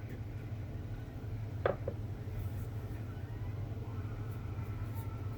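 Steady low mechanical hum, with a single short click about a second and a half in.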